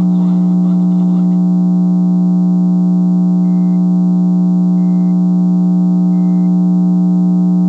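Loud steady electrical hum, a low buzz with many overtones, filling the radio audio. Three faint short high beeps sound about a second and a half apart in the middle.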